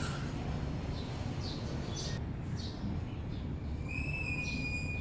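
Birds chirping in short calls over a steady low rumble. About four seconds in, a long, steady whistled note begins.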